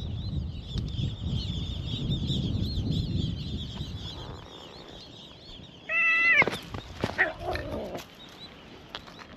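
A stray cat gives one loud, drawn-out meow about six seconds in, its pitch holding and then dropping, followed by a few shorter, broken cries. Before it, a continuous high twittering runs over a low rumble, which fades out after about four and a half seconds.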